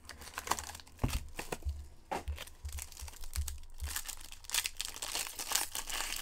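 Foil wrapper of a Black Diamond hockey card pack crinkling and tearing as it is opened by hand, in sharp irregular crackles that grow denser near the end.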